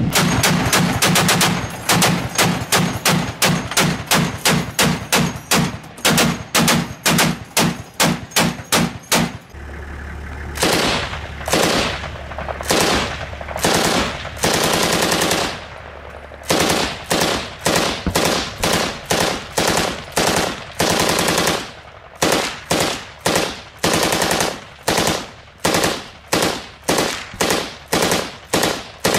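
Truck-mounted machine gun firing strings of rapid shots, about three to four a second, with a short break near the middle before firing resumes.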